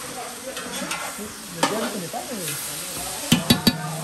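Smoked duck pieces and onions sizzling in a large aluminium pot as they are stirred, with three or four sharp knocks close together near the end, as of the utensil striking the pot.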